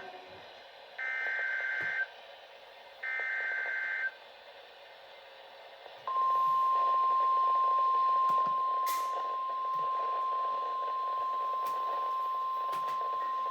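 Emergency Alert System alert over a hissy radio: two one-second warbling bursts of the SAME digital data header, then, about two seconds later, the steady single-pitched NOAA Weather Radio 1050 Hz warning tone starts and holds.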